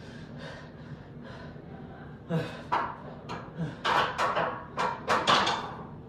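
A man breathing hard in short, forceful puffs during a set of barbell back squats, starting about two seconds in and coming faster near the end.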